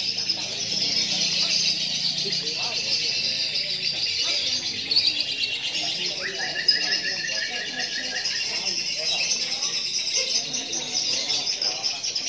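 Lovebird singing one long, unbroken high-pitched chattering trill: the continuous 'durasi' song that is timed and judged in lovebird fighter contests.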